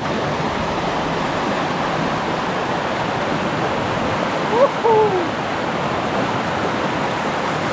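Steady rushing noise of flowing water. About four and a half seconds in there is a short call in two parts, rising and then falling.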